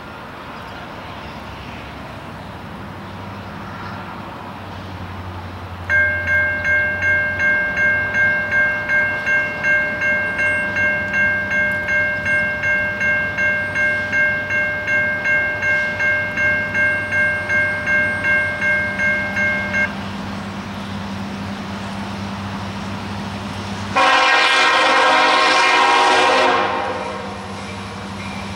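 Railroad grade-crossing bell ringing steadily about twice a second for about fourteen seconds, over the low running of a diesel freight locomotive. Near the end the locomotive's air horn sounds one long blast of about three seconds.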